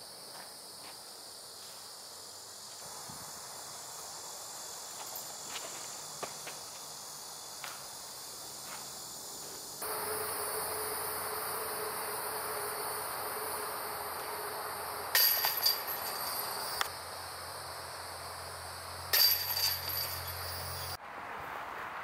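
Steady buzzing of insects in woodland, with a few faint footstep-like clicks. About halfway the sound steps up louder and busier, and two short, louder bursts come near the end.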